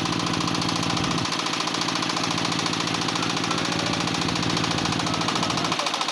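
An engine running steadily with a rapid, even knocking beat; a low hum in it shifts about a second in and drops away near the end.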